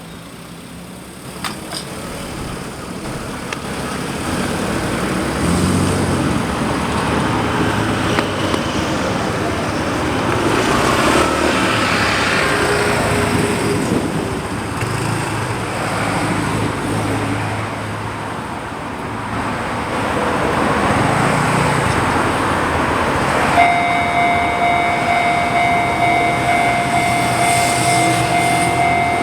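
Road traffic passing a railway level crossing, the noise swelling and fading as cars go by. Near the end a Japanese level-crossing warning bell starts up suddenly with a steady electronic tone, the signal that an Enoden train is approaching.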